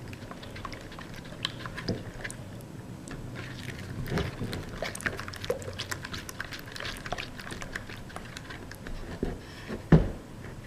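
Clear glue slime being stirred in a bowl just after contact-solution and baking-soda activator is added: sticky, wet clicking and crackling as the glue starts to activate, with a single louder knock near the end.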